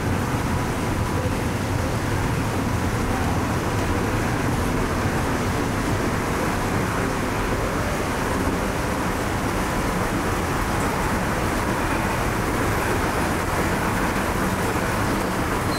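Steady city traffic noise: a continuous rumble of road vehicles with no distinct events.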